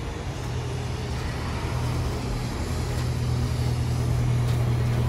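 Road traffic dominated by the steady low engine hum of a nearby double-decker bus, growing slightly louder over a few seconds.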